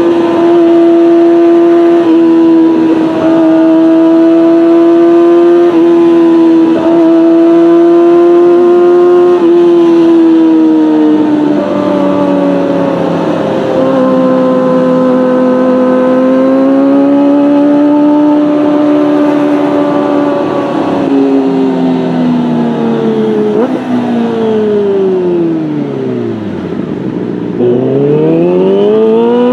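Kawasaki Ninja ZX-25R's 250 cc inline-four running at high revs through a Beet Nassert R Evolution exhaust with no catalytic converter. The revs hold high and steady with a few brief dips, ease slightly, then fall away smoothly to low revs about 27 seconds in and climb steeply again.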